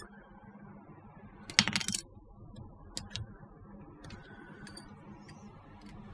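Sprue cutters snipping styrene plastic parts from a model kit sprue: a sharp snap about one and a half seconds in, then a few fainter clicks.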